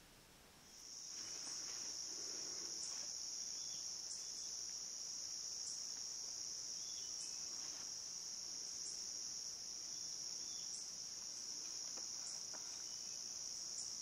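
An insect, cricket-like, giving a steady high-pitched buzz that starts about a second in and holds unbroken.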